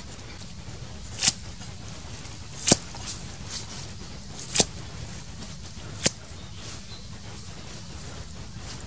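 A cleaver chopping leafy green stems on a round wooden chopping block: four sharp chops spaced about one and a half seconds apart, with a few lighter taps in between.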